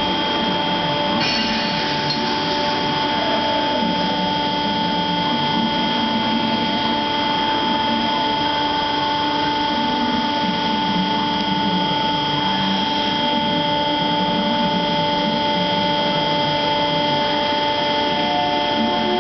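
Industrial combustion equipment running steadily: a loud, even machine noise carrying several constant whining tones. Near the end, another pair of steady tones joins in.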